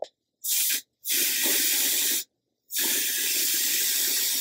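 Aerosol can of Salon Grafix dry shampoo spraying onto hair roots in three hissing bursts: a short one, then two longer ones.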